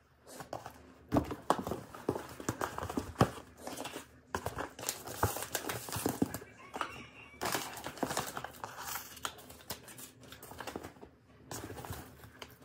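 Paper crinkling and rustling in irregular handfuls with sharp crackles as presents are packed into a gift bag, easing off a little before the end.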